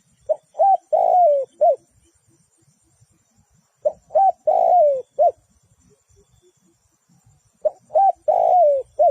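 Spotted dove cooing: three repeats of the same four-note phrase, about every three and a half seconds, each with two short notes, a longer falling note, then a short closing note.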